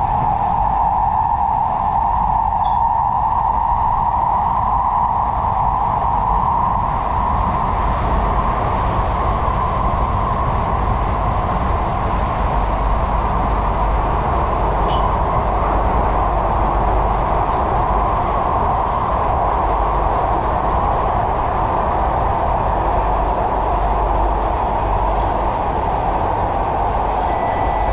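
Singapore MRT train running between stations, heard from inside the carriage: a steady rumble of wheels on rail with a constant mid-pitched drone over it.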